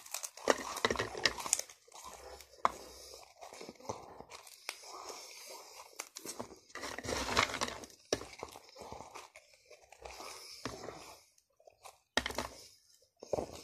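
A person chewing and munching mouthfuls of french fries fast, in irregular bursts with short pauses, as handfuls are stuffed into the mouth.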